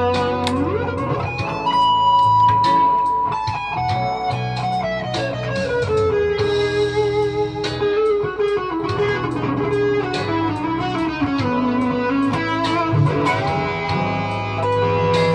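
Squier Affinity electric guitar playing a lead over a backing track, with held notes and string bends that slide the pitch up and down, set against a steady drum beat.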